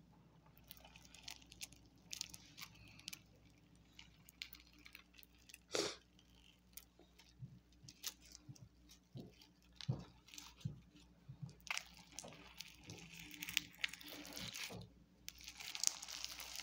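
Hands pulling apart and squeezing the white, fluffy filling of a cut-open squishy toy: faint scattered crackles and crinkling, thicker over the last few seconds.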